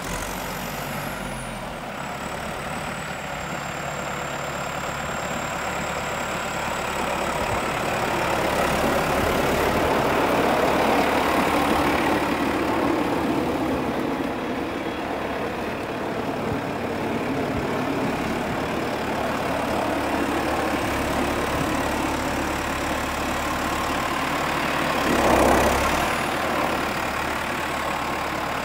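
Valtra XM tractor's diesel engine running as the tractor drives around and turns. A thin high whistle holds for the first few seconds. The engine grows louder around ten seconds in, with a short louder burst about 25 seconds in.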